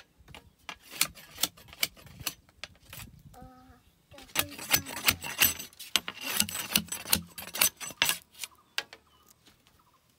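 Bamboo poles and split bamboo strips knocking and clattering against each other as they are handled, with a stretch of bamboo scraping on bamboo in the middle.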